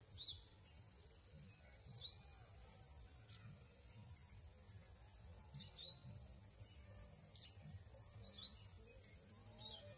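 Faint field ambience: a steady high-pitched insect trill, with a bird giving short downward-sliding chirps about five times.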